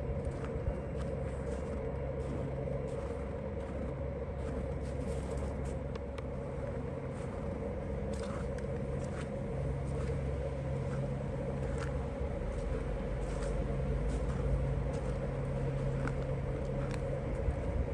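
Steady low mechanical drone with a constant hum and rumble, and a few faint clicks.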